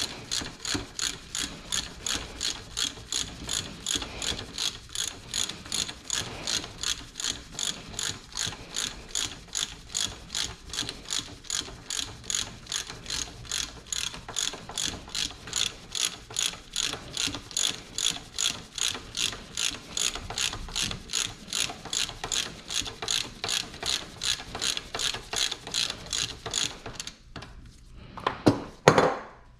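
Hand ratchet wrench clicking in a steady rhythm, about three clicks a second, as it is worked back and forth. The clicking stops near the end and is followed by a couple of louder knocks.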